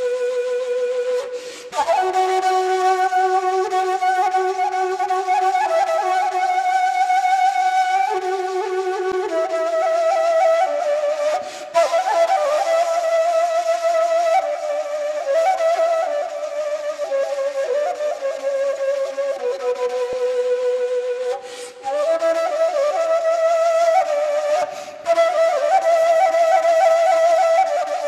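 Background music: a solo flute playing a slow melody in long held notes, with a few short breaks between phrases.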